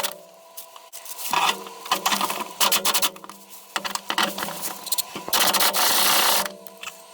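Hand-tool work on the fuel tank strap bolts: several short bursts of rapid ratcheting clicks and scraping, then a steady rush of noise lasting about a second, around five seconds in.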